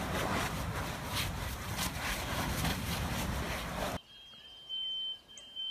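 Lava fountaining from a newly opened eruptive fissure on Kilauea's lower east rift zone: a loud, steady rushing noise broken by many sharp pops and cracks as spatter bursts. About four seconds in it cuts to a much quieter scene where a high, steady beep sounds on and off, with faint chirps.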